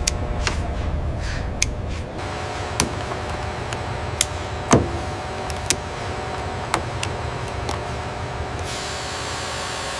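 Steady low machine hum of a factory floor, with about eight sharp, irregular clicks of hand tools working on a wiring connector panel; the loudest click falls a little before the middle. A faint hiss comes in near the end.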